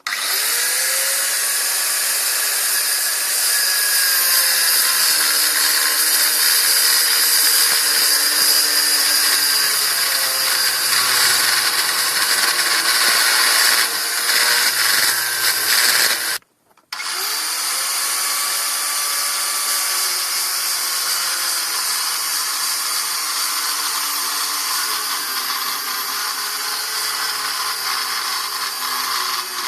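Power tool, most likely an angle grinder, cutting through the steel angle arms. Its loud steady hiss and whine sags and recovers in pitch as the motor is loaded. It stops briefly a little past halfway, then starts again.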